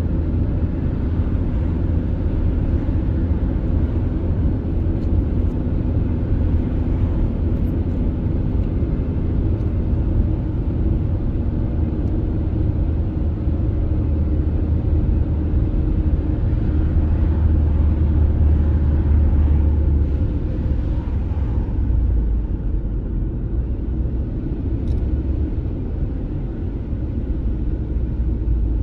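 Steady low rumble of a car's road and tyre noise, heard from inside the moving car.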